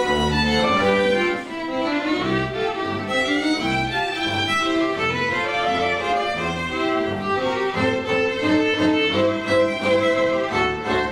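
A string quartet, violin-led with a double bass, playing a piece live. The violins carry the melody over low bass notes.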